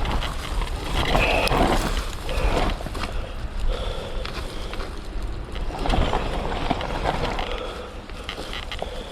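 Surron Ultra Bee electric dirt bike with a TORP TM50 Pro motor ridden hard off-road: a faint electric motor whine swells with the throttle, about a second in and again around six seconds. Over it run the rattle of chain and chassis and the noise of tyres on wet ground.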